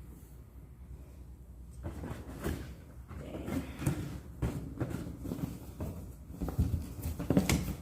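Irregular knocks and rustling from objects being handled up close, starting about two seconds in and loudest near the end.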